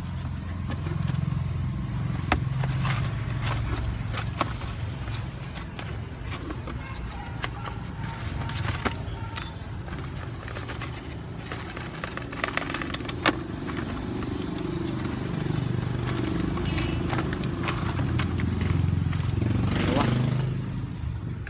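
Short sharp clicks and handling noises as a parcel holding a replacement turn-signal lamp is opened, over a steady low motor-vehicle rumble that swells near the end.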